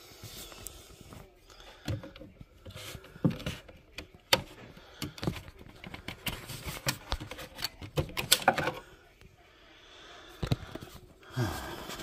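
Irregular plastic clicks and knocks of fingers working a 9-volt battery out of a FireAngel smoke alarm's battery compartment, with a busy run of clicks in the middle.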